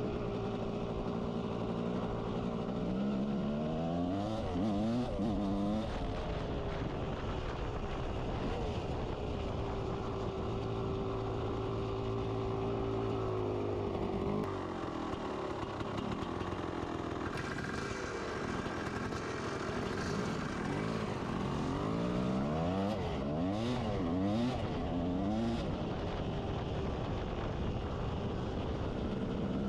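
1992 Kawasaki KX250 two-stroke dirt bike engine being ridden, its pitch rising and falling as the throttle is worked, with a steadier stretch in the middle.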